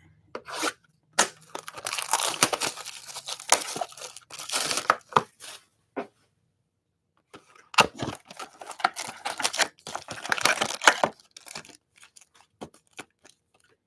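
Plastic wrapping of a trading-card box and its packs being torn open and crinkled. There are two spells of crackling with a short pause about six seconds in, then a few light clicks near the end.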